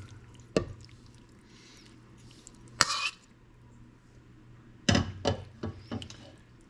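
Chicken pieces and a tablespoon knocking and scraping in a baking dish of rice and soup: a few short knocks, one louder short noisy burst about three seconds in, and a cluster of knocks near the end.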